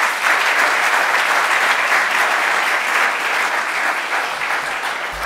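Audience applauding steadily to welcome a speaker to the front.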